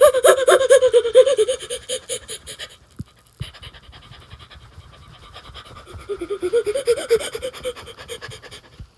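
A cartoon character panting hard in quick, pitched breaths, about five a second and sinking a little in pitch. The panting breaks off about three seconds in and comes back more faintly near the end.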